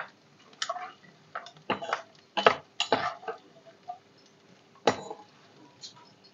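A perforated steel skimmer knocking and scraping against a nonstick kadhai while it stirs pieces of edible gum (gond) frying in ghee. The clinks come at irregular intervals, about eight in six seconds.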